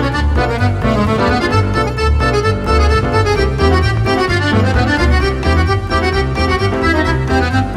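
Background music led by an accordion-like keyboard melody over a steady bass beat.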